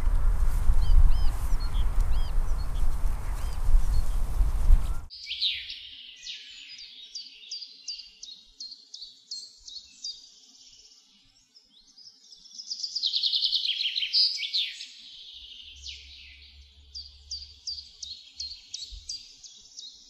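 Loud low rumble and handling noise on the microphone, with a few faint bird chirps, cutting off abruptly about five seconds in. Then clear birdsong: a songbird singing quick, repeated high chirps and trills, loudest just past the middle.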